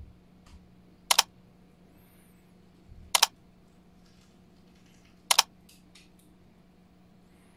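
Three sharp clicks about two seconds apart over a faint steady hum, timed like pop-up sound effects as on-screen rating captions appear.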